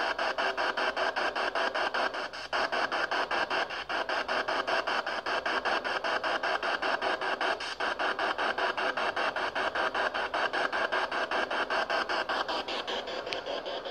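PSB7 spirit box sweeping through radio frequencies: static chopped into even pulses about five times a second, softening near the end.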